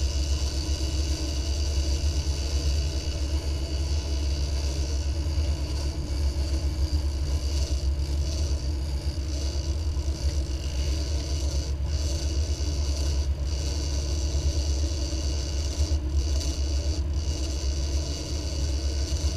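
Fishing boat's engine running steadily while underway: an even, low drone with a steady high whine above it.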